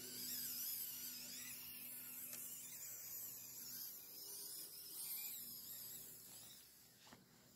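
Small electric motor and plastic gearbox of a 3D-printed 1/16-scale RC tractor whining faintly and wavering as it drives through long grass. The sound fades away near the end.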